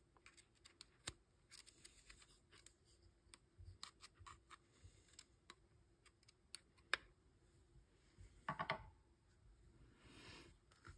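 Faint, scattered small clicks and taps of plastic and metal parts being handled while a Byrna TCR launcher's receiver is reassembled, with one sharper click about seven seconds in and a short cluster of scraping clicks soon after.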